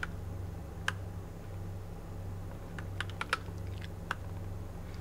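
Keys of a Royal Kludge RK84 mechanical keyboard with yellow switches clicking as they are pressed to cycle its RGB lighting effects. There is a single press at the start, another about a second in, a quick run of about five presses around three seconds in, and one more near four seconds, over a low steady hum.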